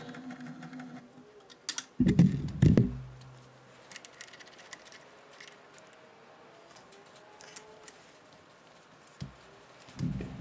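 Bridgeport milling machine spindle winding down. About two seconds in there are a few loud metal clunks, then light clicks and taps of metal tooling being handled while the drill bit in the spindle is changed.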